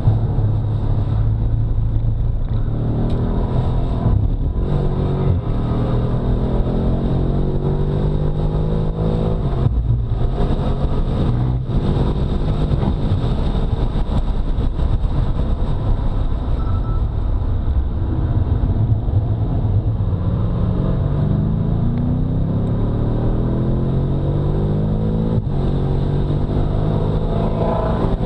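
BMW F90 M5's twin-turbo 4.4-litre V8 under hard acceleration, its pitch climbing through the revs in several long pulls. Brief breaks come where it changes gear.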